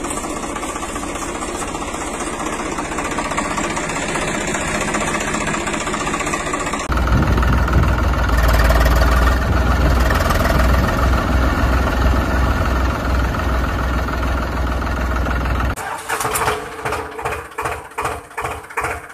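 Tractor engine running, changing about seven seconds in to a louder, deeper engine sound, and near the end to a pulsing chug of about two beats a second.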